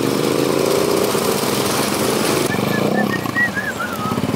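Motorcycle engine running under the rider as he rides in a group of motorcycles, rising in pitch as it accelerates in the first second or so. From about halfway through, a string of short high chirps sounds over the engine.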